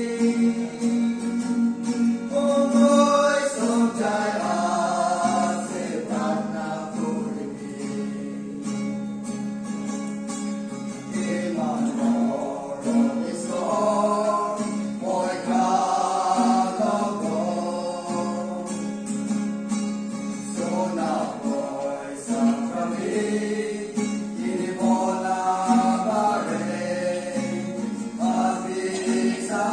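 Gospel song sung in Nagamese with guitar accompaniment, the voices coming in phrases of a few seconds over a steady low held note.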